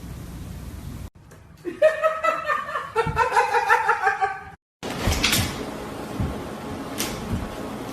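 High-pitched laughter in quick repeated pulses for about three seconds, set between abrupt cuts.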